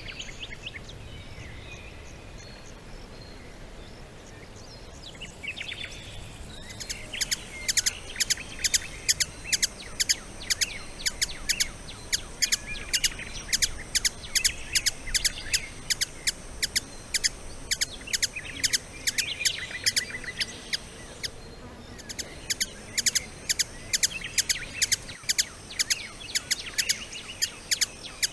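Birds chirping. About seven seconds in, a dense run of sharp, rapidly repeated chirps starts alongside a steady high-pitched buzz, with a short break about three-quarters of the way through.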